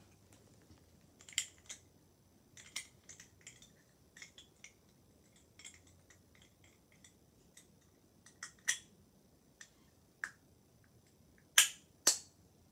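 Small hard-plastic toy parts and packaging being handled: scattered light clicks and taps at irregular intervals, with two sharp, louder clicks near the end.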